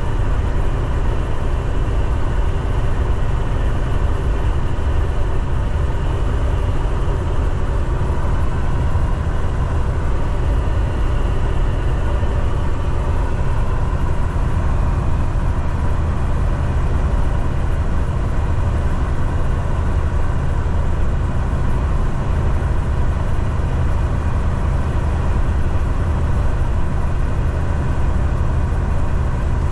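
Semi truck cruising, heard from inside the cab: a steady low engine drone mixed with road noise.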